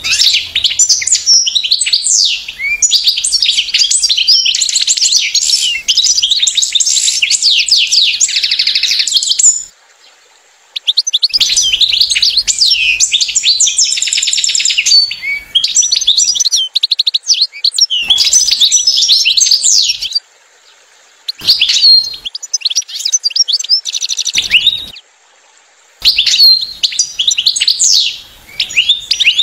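European goldfinch twittering: long runs of quick, liquid chirps and trills, stopping abruptly three times for about a second before starting again.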